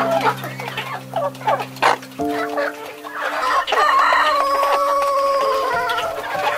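Chickens clucking, then a rooster crowing, with one long crow from a little past halfway, over background music with held notes.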